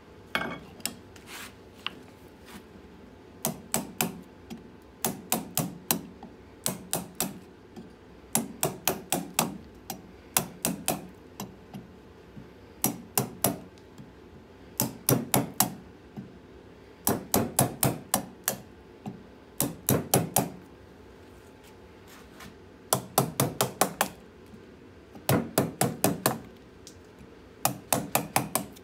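A mallet striking a carving gouge's handle, driving the gouge through green birch to hollow out a bowl. It comes in quick runs of three to six sharp knocks, with pauses of a second or two between runs.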